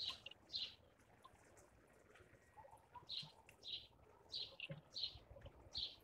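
Tits giving short, high call notes, about seven spaced through a few seconds with pauses between, quiet overall. A few soft low knocks come in the second half.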